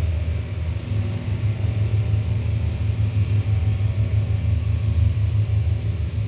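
Experimental noise music from analog synthesizers: a dense, steady low rumbling drone with a faint hiss above it.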